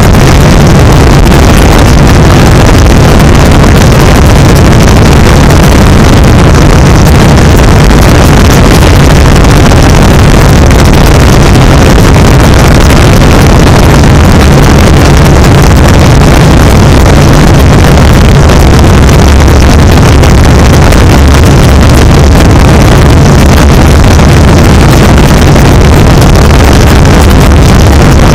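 Steady, low boat-engine drone, very loud and unchanging, with a thick noise over it.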